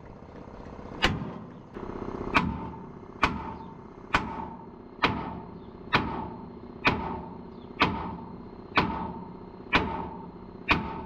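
A hammer striking the steel of an accident-damaged truck body, about a dozen steady blows roughly one a second, each with a short metallic ring: straightening bent metal.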